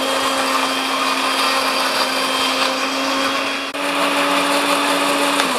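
Countertop electric blender running steadily, grinding shallots, garlic and candlenuts with a little water into a fine spice paste. Its motor hum steps up slightly in pitch a little past halfway, and it switches off near the end.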